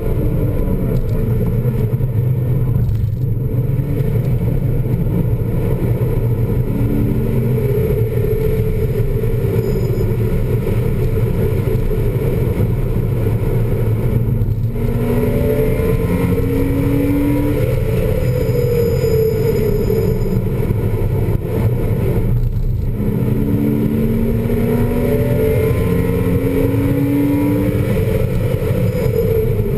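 2000 Porsche Boxster S's 3.2-litre flat-six engine heard from inside the cabin under hard driving on track, its pitch climbing again and again as it pulls through the revs. There are three brief breaks, about 3, 14 and 22 seconds in, over constant heavy road and wind noise.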